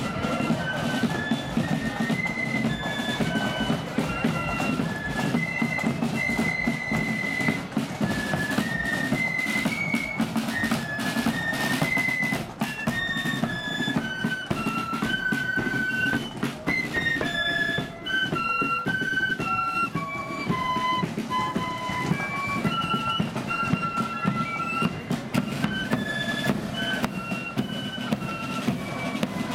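Marching flute band in the blood-and-thunder style playing a tune: a high melody on flutes over side drums, bass drum and cymbals keeping a steady march rhythm.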